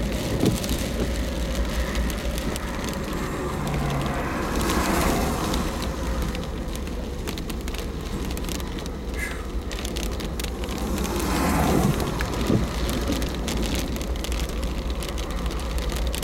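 Monsoon storm wind and rain: a steady spatter of raindrops over a constant low rumble, swelling louder twice, about five seconds and about eleven seconds in.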